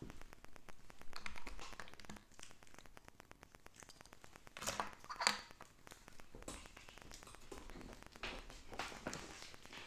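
Light handling noises of small plastic toys: scattered taps, clicks and rustles, with two sharper clicks about halfway through.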